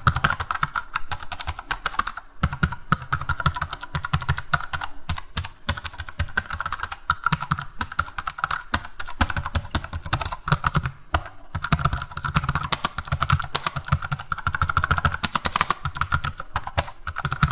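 Continuous rapid clicking and tapping, like fast typing on a keyboard, with a brief pause about eleven seconds in.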